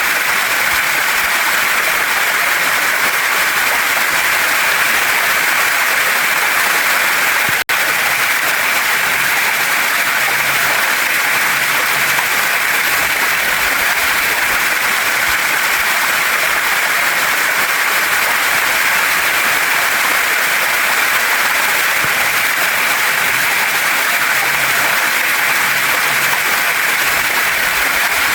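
Small waterfall and stream rushing steadily over rocks, an even hiss of falling and splashing water, broken by a split-second dropout about eight seconds in.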